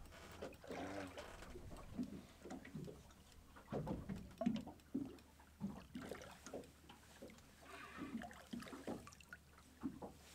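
Faint water sloshing against a boat's hull in short, irregular splashes.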